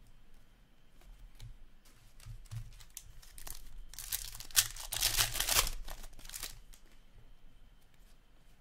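Foil wrapper of a hockey card pack being torn open and crinkled: a burst of tearing and crinkling lasting about three seconds in the middle, with a few faint clicks of cards being handled before it.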